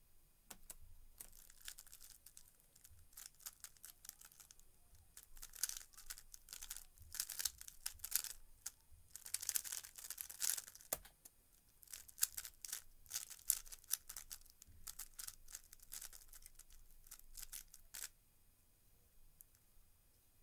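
Plastic 3x3 speedcube being turned very fast by hand: rapid clacking and rattling of the layers in dense flurries with brief pauses, and a single knock about eleven seconds in. The turning stops about eighteen seconds in.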